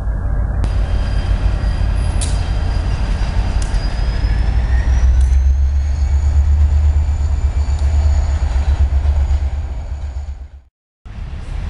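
CSX diesel freight locomotive rumbling as it moves along the track, with a faint high whine that rises in pitch partway through. The sound cuts out abruptly near the end.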